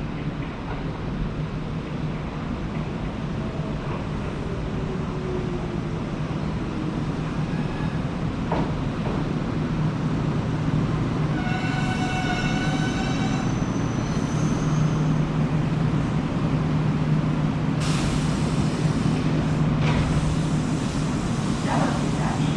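Electric express train pulling into the station, its steady running hum growing louder. About eleven seconds in, the train's horn sounds once for about two seconds, and a few sharp clacks come near the end.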